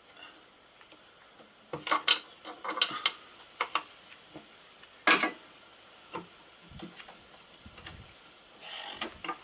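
Metal hand tools and engine parts clinking and clanking at irregular intervals during work on a motorcycle clutch, with sharp knocks about two and five seconds in.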